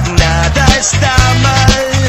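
Rock song with a singing voice over bass and drums, the drum hitting about twice a second.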